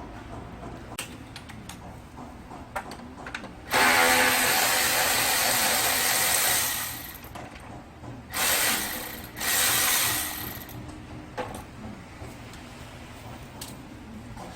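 Handheld power tool running in three bursts: one of about three seconds that winds down, then two short ones of about a second each, with scattered light tool clicks before them.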